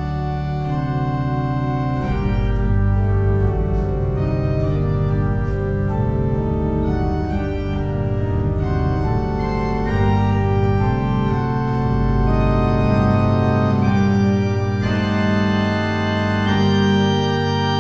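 Pipe organ playing sustained chords, the notes and the bass line changing every second or two.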